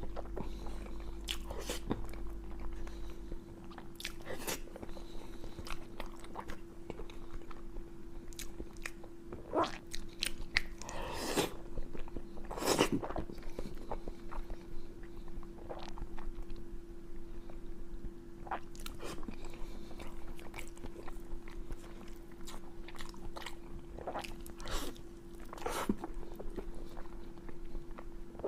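A person biting and chewing crunchy food close to the microphone, with irregular crunches and smacks, over a steady faint hum.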